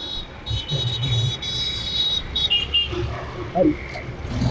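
Street traffic: motorbike and car engines running close by, with brief voices of passers-by.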